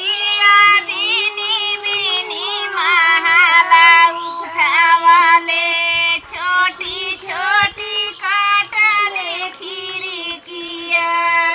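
Village women singing a Kajri folk song, high voices phrase after phrase.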